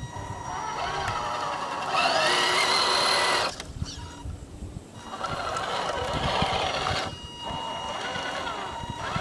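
Tamiya High Lift Hilux RC truck's electric motor and gearbox whining in bursts as it crawls, the pitch rising and falling with the throttle. The loudest burst comes about two seconds in and lasts a second and a half. Another starts about five seconds in, with a short break near seven seconds.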